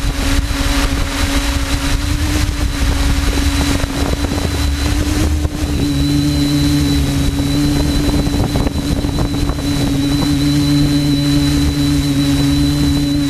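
Quadcopter drone's motors and propellers humming steadily, with wind buffeting the microphone. A second, lower hum joins about six seconds in.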